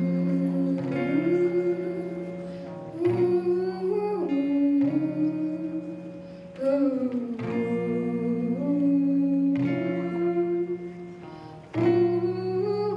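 Acoustic guitar strummed in slow chords, with a fresh strum every few seconds, while a voice sings a gliding melody over it.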